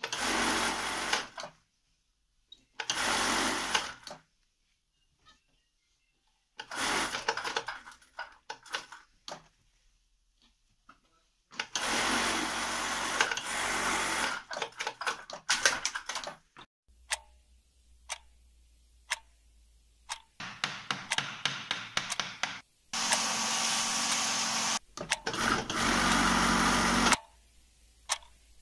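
Industrial sewing machine stitching in repeated spurts of one to four seconds, stopping and starting again. In the quiet gaps between spurts, a wall clock ticks faintly.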